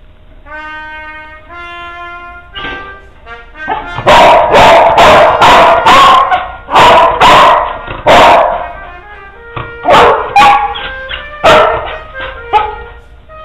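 A dog barking in a rapid series of about a dozen loud barks, starting about four seconds in and trailing off near the end, over background music.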